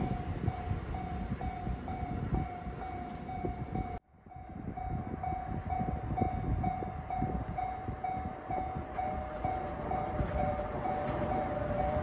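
Japanese railway level-crossing warning bell ringing, an electronic ding repeating evenly a few times a second. From about nine seconds in, a second, lower-pitched crossing bell rings along with it. A train's low rumble runs underneath and grows louder near the end.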